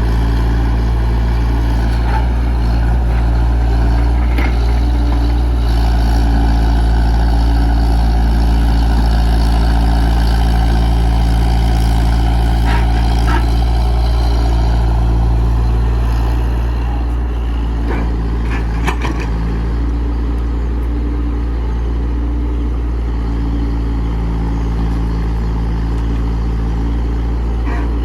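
Komatsu PC68 excavator's diesel engine running steadily, with a higher whine over it from about six to fifteen seconds in and a few knocks about two-thirds of the way through.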